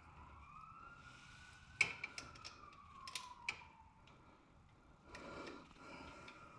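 Scattered metallic clicks and ticks of hand tools fitting and tightening bolts on a motorcycle's shift linkage, the sharpest click about two seconds in. A faint tone rises and then falls behind them over the first few seconds.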